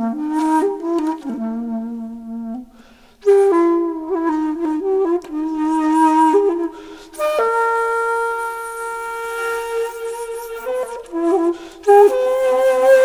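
Background music: a slow solo melody of held and bending notes, with a brief pause about three seconds in and one long held note in the middle.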